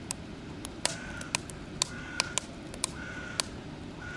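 Knife thinly slicing a carrot on a cutting board: sharp, irregular clicks about two a second as the blade goes through and meets the board.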